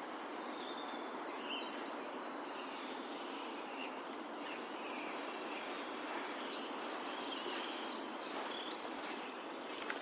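Countryside ambience: a river rushing steadily, with distant birds chirping now and then and a few short clicks near the end.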